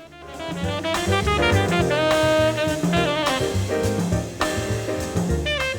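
Background music, an upbeat jazzy tune with saxophone-like melody, bass and drums.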